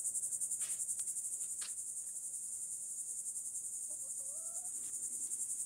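A steady, high-pitched insect chorus pulsing rapidly, with a brief faint rising call about four seconds in.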